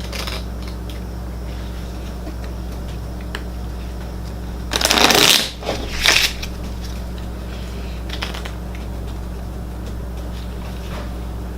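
A deck of Exploding Kittens playing cards being handled, with a quick rush of cards riffled or shuffled about five seconds in and a shorter one just after, over a steady low hum.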